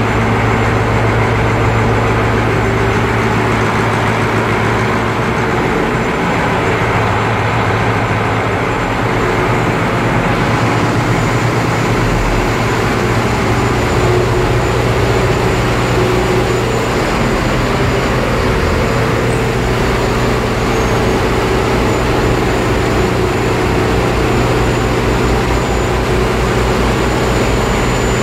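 Caterpillar marine diesel engine running steadily in the boat's engine room, a loud even drone with a constant low hum.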